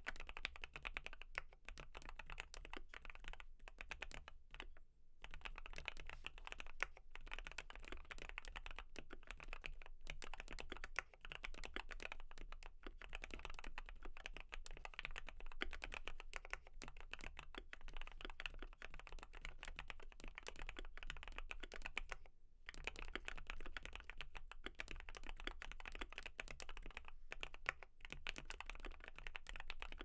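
Continuous fast typing on a Keychron Q1 knob mechanical keyboard fitted with lubed Tealios linear switches, PE-foam and tape mods and PBT dye-sub keycaps: a dense run of keystrokes with two short breaks.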